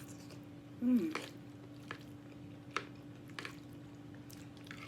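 Close-miked wet mouth sounds of eating pasta: a few sharp smacking clicks, with a short voiced hum about a second in.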